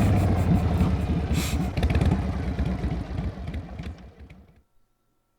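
Motorcycle engine running with a steady low pulsing, then fading away near the end.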